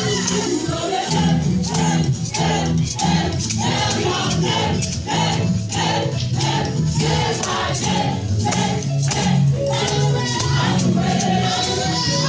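A choir singing a praise song over steady rhythmic percussion and a low bass line.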